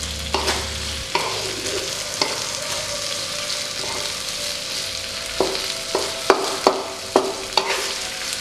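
Snow peas and chillies sizzling in hot oil in a wok as they are stir-fried, with a spatula scraping and knocking against the pan; the knocks come several times in quick succession in the last few seconds.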